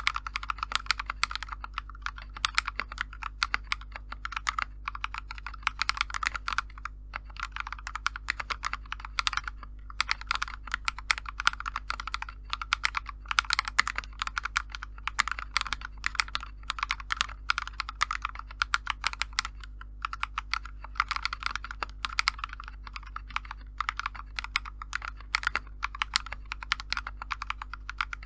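Typing on a mechanical keyboard fitted with lubed KTT Kang White V3 linear switches: a fast, continuous run of keystrokes, with short pauses about seven and ten seconds in.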